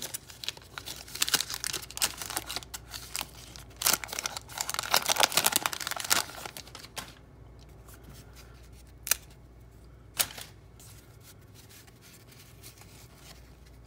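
Wax-paper wrapper of a 1987 Topps baseball card pack crinkling and tearing as it is peeled open by hand, for about six seconds. Later, two short clicks about a second apart.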